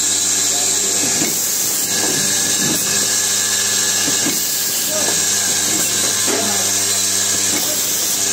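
Automatic wire soldering machine running: a steady hum under a constant high hiss.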